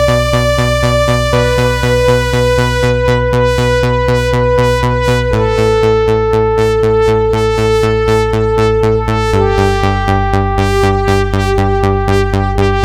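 Arturia AstroLab playing a Jupiter-8 (Jup-8) synthesizer preset: held chords pulsing about four times a second, stepping down to a lower chord about every four seconds.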